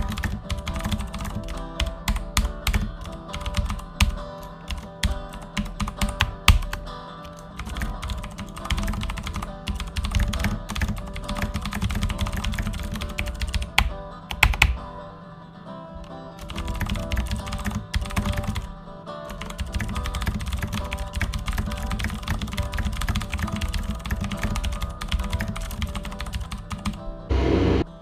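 Rapid computer-keyboard typing clicks over background music with steady held low notes. The typing breaks off briefly about fifteen seconds in.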